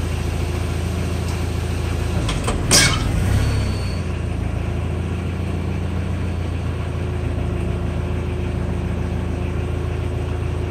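New Holland L175 skid steer's diesel engine idling steadily, with one sharp, loud clank and a short rush of noise about three seconds in as the hydraulics work the quick-attach plate.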